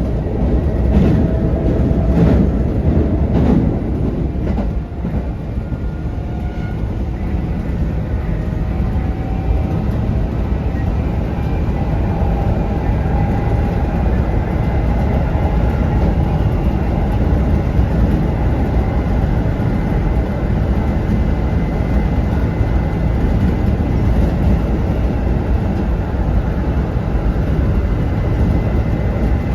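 Kintetsu 1810 series electric train running, with a steady low rumble. The wheels click over rail joints in the first few seconds, and faint whining tones from the drive come and go above the rumble.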